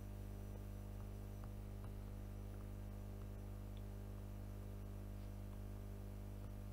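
Steady low electrical hum with a few faint ticks scattered through it.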